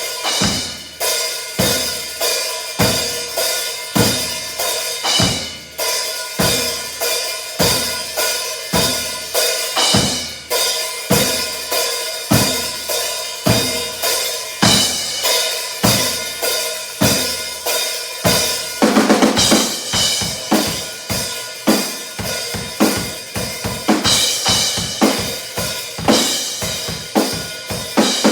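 Acoustic drum kit played in a steady beat of kick and snare strokes under ringing cymbals; about two-thirds through it breaks into a much faster, denser run of strokes.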